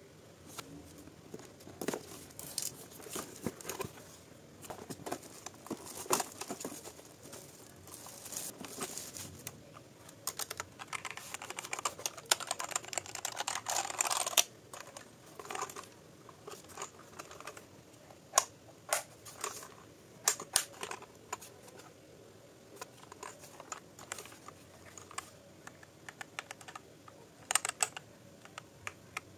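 Keys of a mechanical computer keyboard being pressed: irregular clacking keystrokes, some in quick runs. A denser stretch of rustling noise lasts a few seconds around the middle.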